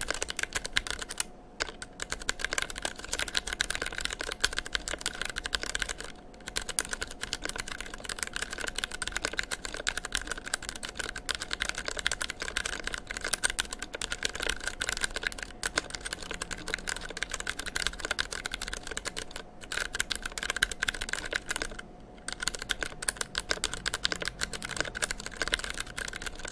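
Steady, fast typing on a TEX Yoda II mechanical keyboard fitted with Ergo Clear tactile switches on 62 g springs and GMK keycaps: a dense stream of key clicks broken by a handful of brief pauses.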